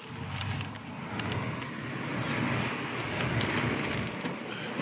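Rustling and handling noise from clothing and a bag rubbing on the phone microphone while climbing out of a passenger van, over a steady low rumble of traffic and idling vehicles.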